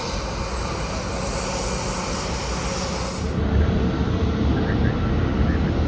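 Jet airliner engine noise: a steady roar with a high whine. A little over three seconds in, the high whine cuts off abruptly, leaving a louder low rumble.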